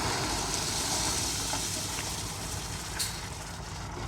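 JCB 3DX backhoe loader's diesel engine running, under a loud steady hiss that drops away sharply about three seconds in, with a click.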